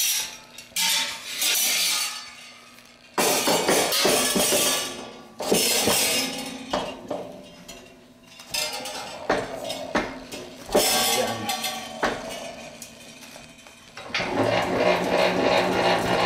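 Stainless steel planetary mixer bowl and wire whip clanking and clinking as the whip is handled and fitted onto the mixer's shaft, in irregular bursts with gaps between them. A steadier sound with music in it comes in about two seconds before the end.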